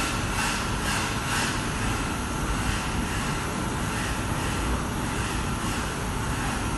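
5-axis CNC milling machine running as it carves a human head: an even whirring noise, with a pulsing whoosh about twice a second for the first second and a half, then steady running.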